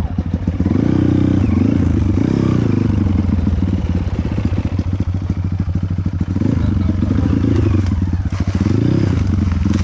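Dirt bike engine running and being revved up and down over and over, its pitch rising and falling every second or so.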